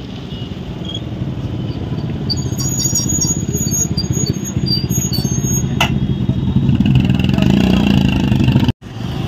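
Small road-vehicle engine running close by, getting louder toward the end, with light metallic clinking in the middle. The sound breaks off abruptly for a moment near the end.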